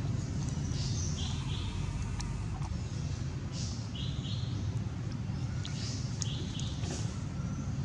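A bird repeating a short double chirp about every two and a half seconds over a steady low rumble.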